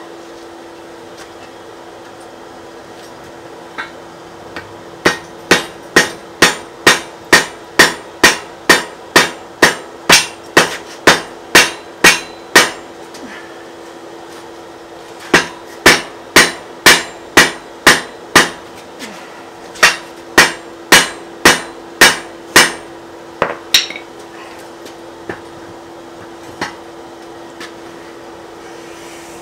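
Hand hammer striking a glowing wrought-iron collar to forge-weld it onto an anvil post, about two blows a second. The blows come in two runs with a short pause between, followed by a few lighter, scattered blows near the end. A steady hum sounds underneath.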